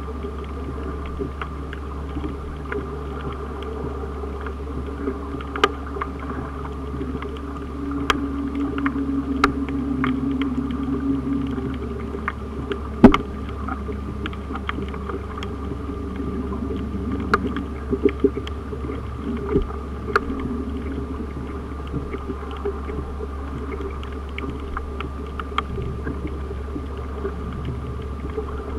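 Underwater ambience picked up by a camera below the surface: a steady low hum with many scattered sharp clicks and crackles, one much louder click about thirteen seconds in, and a louder low murmur swelling and fading between about eight and twelve seconds.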